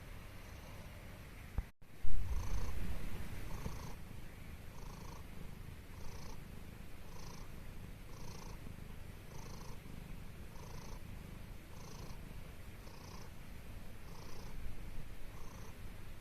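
Calico cat snoring in its sleep: soft, slightly wheezy breaths repeating about once a second over a low rumble. The sound cuts out briefly about two seconds in, and the low rumble is louder for a second or two after that.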